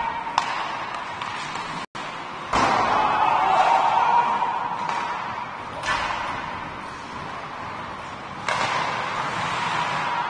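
Hockey game on the rink: several sudden bangs, a few seconds apart and typical of the puck or players hitting the boards, each trailing off into a noisy wash, over a steady hum.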